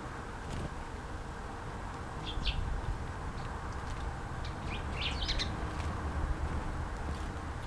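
Small songbirds giving short, high chirps in two quick clusters, about two and a half and five seconds in, with a few single ticks between, over a low steady background rumble.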